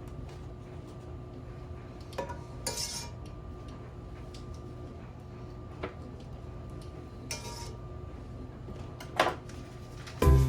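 Cookware and utensils clinking and knocking a handful of times, over a steady low hum.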